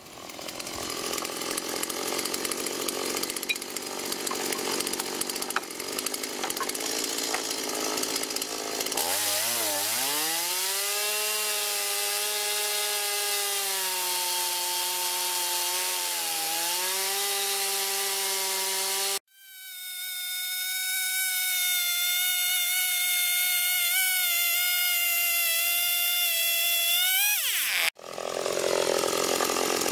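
Small two-stroke chainsaw running at high speed while ripping a log lengthwise in a beam-guide mini mill. The engine note climbs about a third of the way in and dips and recovers under cutting load. It then switches suddenly to a higher pitch and changes again abruptly near the end.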